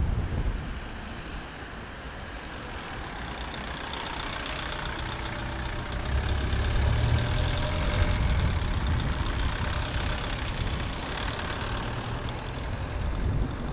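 Car engine and tyre noise heard from inside the cabin while driving: a steady low rumble that grows louder partway through.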